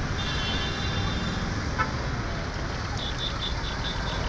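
Steady outdoor rumble of road traffic. In the last second or so a rapid high chirp repeats about five times a second.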